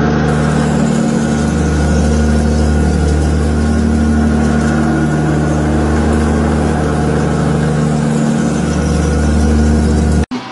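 Boring machine running steadily as its rotating boring bar cuts the inside of a large steel ring: a loud, even hum with several steady tones. It cuts off abruptly near the end.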